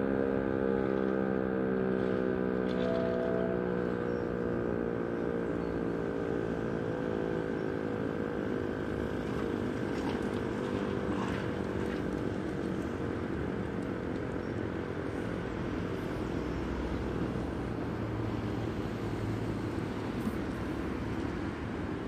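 DS 977 civil-defence siren winding down: its tone slides slowly lower and fades away over the first several seconds. What is left is a steady wash of street and traffic noise.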